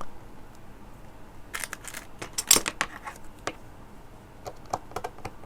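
Small metal tools and a jumper wire's metal pin being handled: a cluster of light metallic clicks and scrapes about a second and a half in, then a few lighter ticks near the end.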